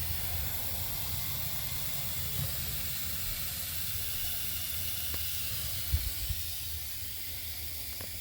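Steady hiss of water spraying from a pinhole leak in a pressurized copper water line inside a wall.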